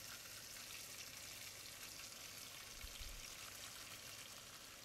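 Beef cubes sizzling faintly in hot olive oil as they start to brown: a steady, even crackling hiss.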